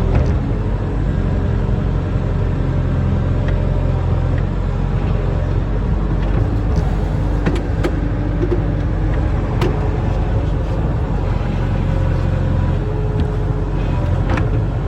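Diesel engine of a barge-mounted excavator running steadily while it dredges, with a few sharp knocks scattered through.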